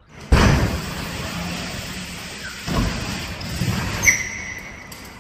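BMX bike tyres rolling over a wooden ramp, a steady rumble, with a hard thud about a third of a second in and another near three seconds. A short high squeak comes about four seconds in.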